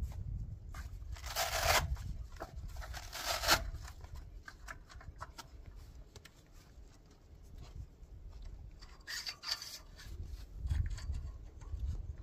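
Short rubbing and scraping strokes, a few seconds apart, over a low rumble.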